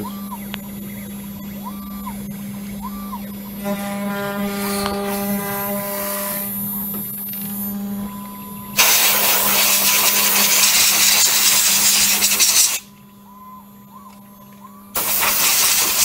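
CNC router spindle running at about 12,000 RPM with a steady hum while an end mill cuts lettering into a wooden board. A compressed-air blow gun hisses loudly for about four seconds from about nine seconds in, blowing the chips out of the cut, and again for about a second near the end.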